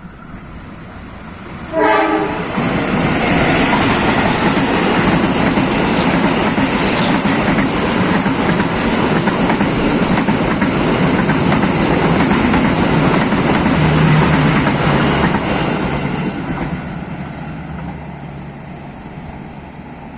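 A passenger train passes: the locomotive's horn sounds briefly about two seconds in, then the rumble and wheel clatter of the passing train fill the air before fading away over the last few seconds.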